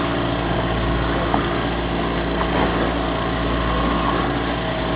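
Fishing boat's engine running steadily, a constant hum with several even tones.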